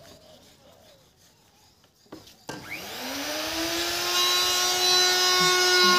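A few faint clicks, then about two and a half seconds in a small electric power-tool motor starts, its pitch rising as it spins up, and then runs steadily, growing louder.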